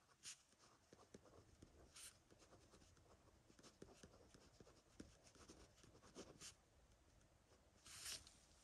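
Pen writing on paper: faint scratching strokes of handwritten letters, with a few sharper scratches among them.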